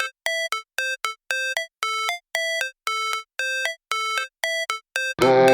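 Background music: a clean electronic beeping figure of short pitched notes repeating about twice a second. Near the end a fuller electronic track with bass takes over.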